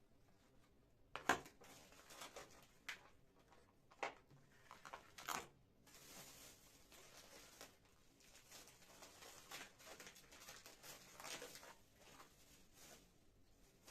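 Quiet handling sounds: scattered taps and clicks with some rustling. The loudest is a sharp knock about a second in.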